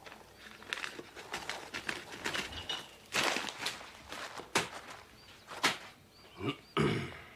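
Paper grocery bags and food packages rustling and crinkling in quick, irregular bursts, with a few louder handling knocks as groceries are unpacked and a hand reaches into a stoneware crock.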